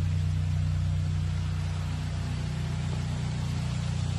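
A steady, unchanging low mechanical drone with an even pitch, like a running machine.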